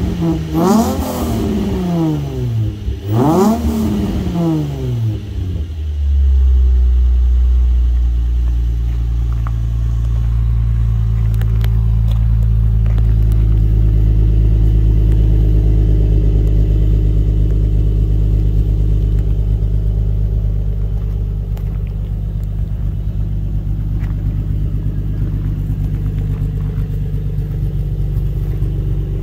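Nissan 350Z's 3.5-litre V6 heard through an Invidia Gemini dual-tip exhaust: two quick blips of the throttle in the first few seconds, the pitch rising and falling each time, then a steady idle for the rest.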